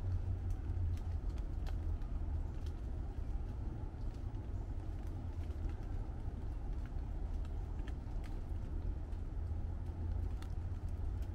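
Light rain on broadleaf tree foliage: scattered single drops ticking on leaves over a steady low rumble.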